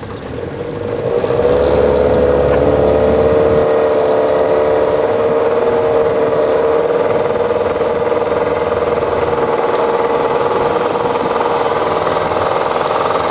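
Boat's outboard motor speeding up over the first second or two, then running steadily at cruising speed with an even, held pitch.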